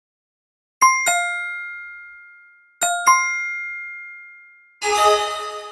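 Bright bell-like chime sound effects: a quick two-note chime about a second in, repeated about two seconds later, each ringing out slowly. Near the end a fuller chord of many chime tones is struck and rings.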